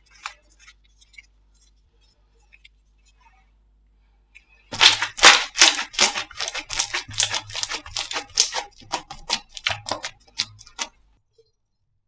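Slime being squeezed and pressed by hand, making sticky clicks and pops. A few faint clicks give way, about five seconds in, to a dense, loud run of sharp clicks that stops about a second before the end.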